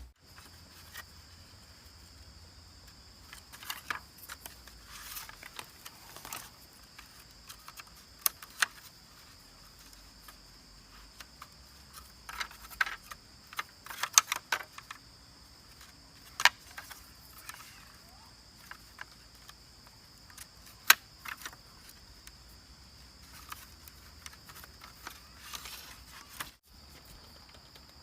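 Scattered sharp clicks and knocks at irregular intervals, with a few loudest single cracks, over a steady faint high-pitched drone.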